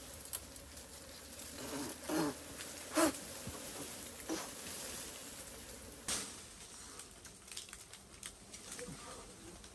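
Leaves and twigs rustling and snapping as someone climbs through a leafy tree, with the louder cracks about two and three seconds in.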